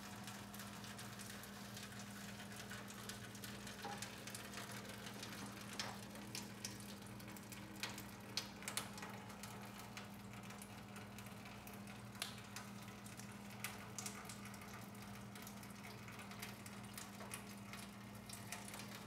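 Gasoline dribbling from a clear fuel line into an aluminium foil pan: a faint, irregular patter with scattered small ticks, over a steady low hum. The flow keeps going with a new vented fuel cap on the tank, a sign that the tank is now venting properly.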